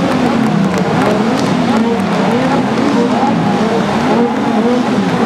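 A lineup of supercars revving their engines in place all at once, many overlapping revs rising and falling in pitch again and again into one continuous loud din.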